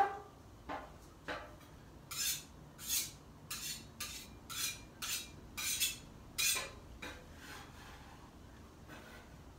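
A metallic clink, then a metal spatula scraping the steel flat-top griddle in about nine short strokes, roughly two a second.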